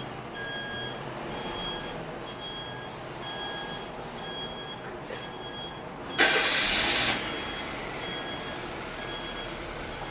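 Chevrolet Spark being remote-started: an electronic beep repeats about every three-quarters of a second, and about six seconds in the starter cranks for about a second and the engine catches and runs.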